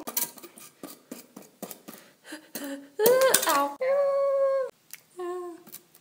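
A girl's voice making wordless vocal sounds: a wavering cry about three seconds in, then a held note, and a shorter held note near the end. Light plastic clicks and taps of toy figurines being handled run between them.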